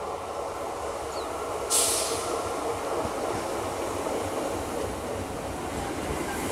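Three-phase Medha EMU local train drawing into a platform and slowing, its running noise steady. A short, sharp hiss cuts in about two seconds in.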